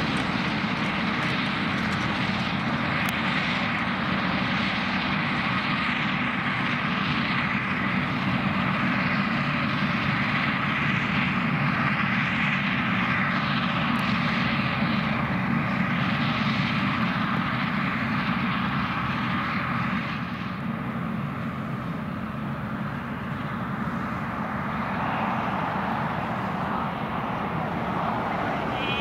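Claas Jaguar 970 forage harvester at full working revs, its V12 engine, cutterhead and blower running steadily as it chops grass and blows it into a trailer. The noise drops a little about twenty seconds in.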